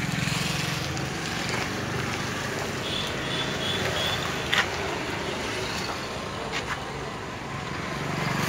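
A vehicle engine running steadily with a low hum, and a single sharp click about four and a half seconds in.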